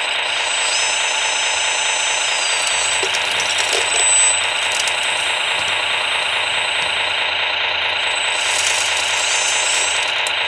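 Radio-controlled scale construction machines at work: a steady, fast mechanical rattle and hum from their engine-sound modules and electric drives, with thin high motor whines coming and going.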